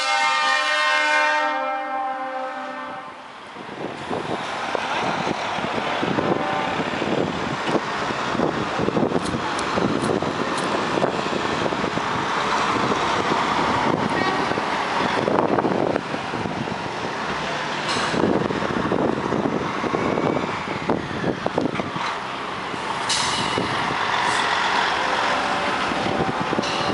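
Truck air horn sounding a multi-tone chord, which cuts off about two to three seconds in. It is followed by the steady running noise of diesel trucks pulling away, with a DAF XF tractor unit rolling past.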